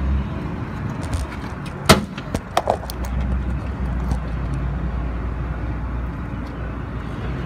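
Car engine running steadily at idle, a low even hum. A sharp click sounds about two seconds in, with two lighter knocks just after.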